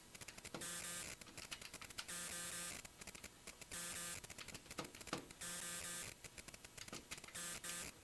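A small machine running with a regular cycle about every one and a half seconds: a short steady hum alternates with a fast mechanical clatter, much like a printer mechanism.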